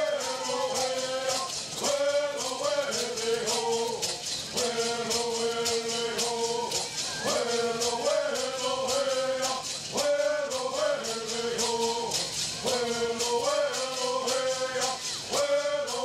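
A group of men singing a Southern California bird song in unison, in repeated phrases of about two seconds with held notes, while shaking gourd rattles in a quick, steady rhythm.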